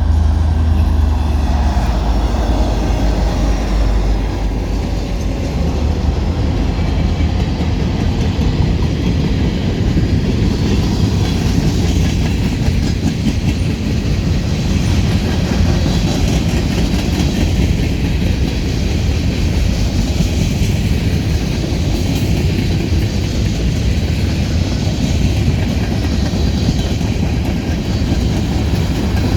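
A train rolling past in a steady, heavy low rumble.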